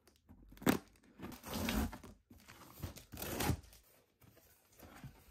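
Cardboard shipping box being torn open and handled: a sharp knock under a second in, then two longer stretches of tearing and rasping cardboard, and a faint rustle near the end.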